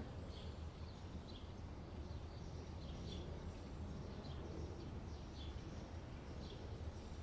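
Outdoor summer ambience: birds chirping, with short downward-sweeping chirps scattered irregularly throughout, over a steady low rumble.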